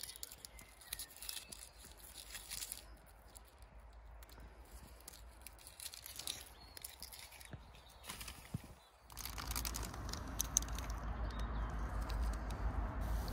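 Light scattered clicks and crinkling from things being handled. About nine seconds in, this gives way abruptly to a louder steady rushing noise with a low rumble.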